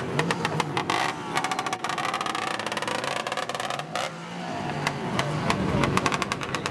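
Sachs DKW 125 two-stroke motorcycle engine running as the bike pulls away, its exhaust crackling with rapid, uneven pops. About four seconds in, the revs climb.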